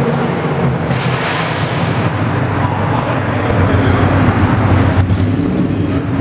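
Turbocharged Subaru flat-four engines running with a steady, deep exhaust rumble in a parking garage, with a brief louder surge about a second in.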